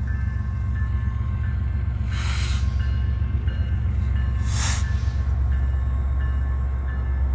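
Deep, steady rumble of an approaching BNSF diesel locomotive leading a coal train, with a grade-crossing bell ringing repeatedly over it. Two short hissing rushes, about two seconds and four and a half seconds in.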